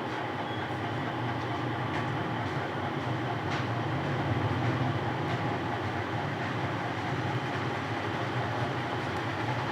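Steady low hum with a noisy hiss over it, from running machinery, with a few faint ticks.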